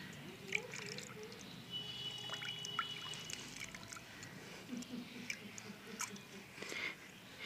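Peeled apples rinsed by hand in a steel bowl of water: small splashes, drips and light clicks as an apple is dunked, turned and lifted out. A short, low, wavering hoot-like call sounds near the start.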